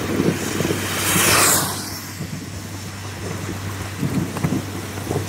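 Heavy rain falling steadily, with a Nissan pickup driving past on the flooded road: its tyres hiss through the water, swelling about a second in and fading away.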